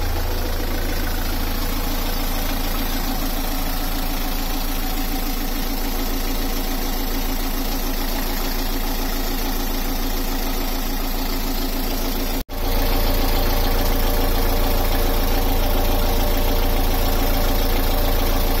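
Beta Marine 38 four-cylinder narrowboat diesel idling steadily, freshly started after an oil and filter change so the new oil can fill the filter. About twelve seconds in the sound briefly drops out, then carries on a little louder.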